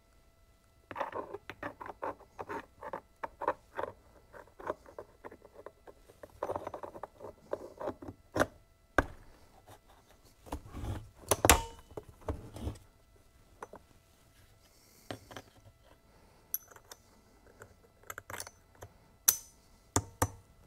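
Hand reassembly of a Kobalt 80V cordless chainsaw's housing around its oiler drive: plastic and metal parts clicking, rattling and scraping as they are fitted together. There are rapid runs of small clicks and several sharp knocks.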